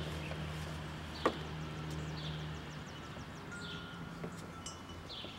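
Outdoor ambience: a bird gives short falling chirps about once a second over a steady low hum. A single sharp click comes about a second in.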